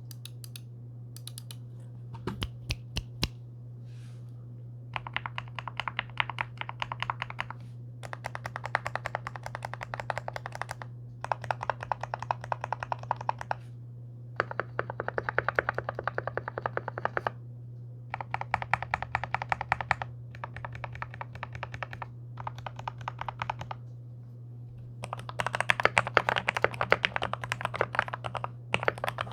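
Typing on a NextTime 75 gasket-mount mechanical keyboard fitted with lubed MOMOKA Frog switches. It starts with a few single key presses, some of them deeper, then goes into bursts of fast typing separated by short pauses, over a steady low hum.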